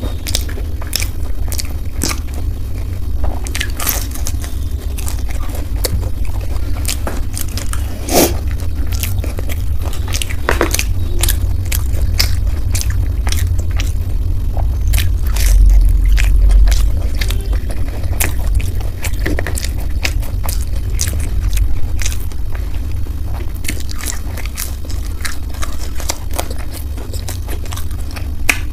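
Close-miked eating sounds: bites and chewing of crisp fried momos, with irregular crunches, clicks and wet mouth sounds. A steady low hum runs underneath.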